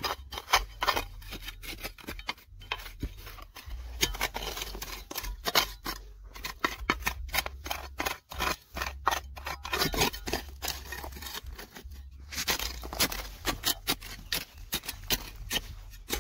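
Quick, irregular scraping and clicking of a digging tool working through stony ground.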